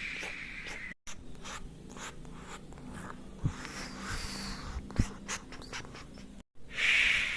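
Hairdresser's-salon sound effects: a run of small dry clicks and rubbing, like scissors snipping through hair, with two duller knocks in the middle. A steady hiss sits under the first second and returns louder near the end, and the sound cuts out for an instant twice.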